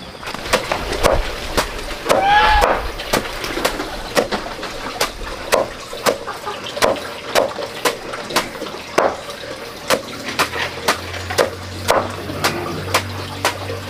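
A knife chopping on a wooden board in steady strokes, about two a second. A short pitched call rises and falls about two seconds in.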